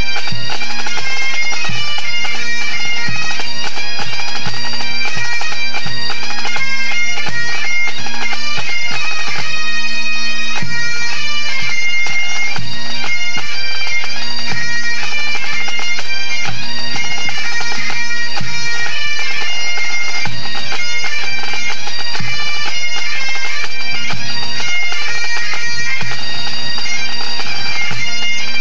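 A pipe band of Great Highland bagpipes playing a tune over steady drones, with the band's drums beating a regular low rhythm underneath.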